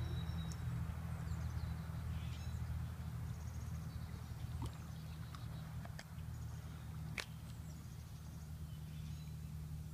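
Small birds chirping faintly over a steady low hum, with a few light clicks and one sharper click about seven seconds in.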